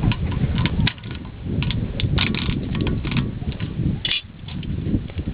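Irregular clinks and knocks of metal tools and parts over a steady low rumble, with a few sharper ringing clinks about two and four seconds in.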